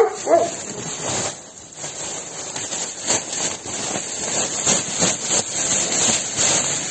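Loose straw being poured and shaken out of a plastic bag into a wooden dog house: the bag crinkles and rustles and the falling straw crackles.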